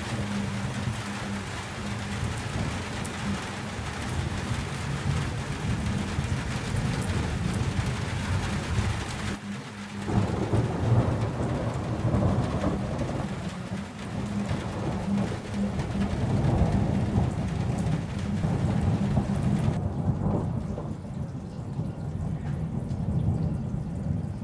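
Thunderstorm: a steady hiss of rain with low, rolling thunder rising and falling in loudness. The sound changes abruptly about ten seconds in, and near the end the hiss of the rain thins out, leaving mostly the low rumble.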